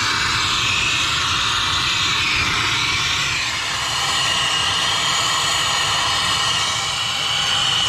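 Brazing torch flame hissing steadily against a copper refrigerant pipe joint, heating the braze so the line can be unsweated from the compressor.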